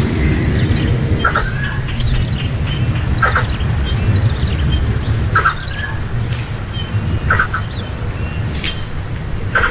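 Young bird giving short squeaky chirps about every two seconds, five in all, over a steady low rumble.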